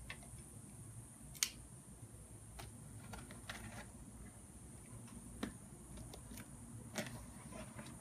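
A few faint, sharp clicks and taps from handling a cardboard shipping box and a small cutting tool while getting ready to cut it open, over a low steady background.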